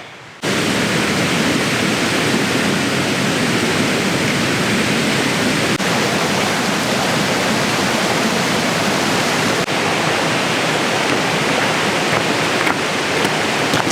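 Steady rush of water falling over a small waterfall, starting abruptly about half a second in.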